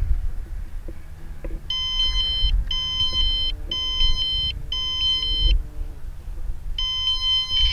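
Rocket flight altimeter beeping out its peak altitude after landing. Four beeps a second apart, a pause, then a single beep near the end: the first digits of the 4,191 ft reached.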